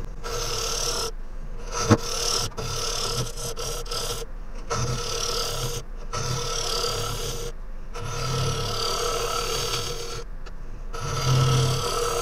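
Wood lathe running while a hollowing tool cuts into the end grain of a green Japanese ornamental cherry blank: bursts of scraping cut noise, broken by short pauses as the tool lifts, over the steady hum of the lathe. There is a sharp knock about two seconds in.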